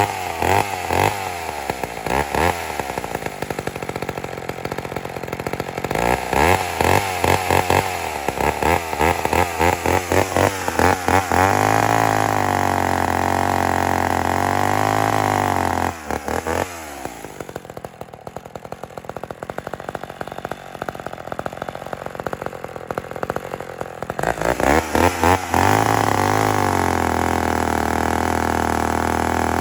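McCulloch Mac 10-10 two-stroke chainsaw running: blipped up and down repeatedly, then held at high speed for a few seconds. About halfway through it drops back to a quieter idle, then is revved again and held high near the end.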